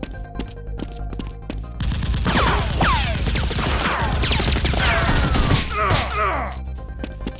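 Background music with a steady beat, then about two seconds in a dense, loud burst of dubbed-in gunfire sound effects with many falling whizzes, lasting several seconds before dropping back near the end.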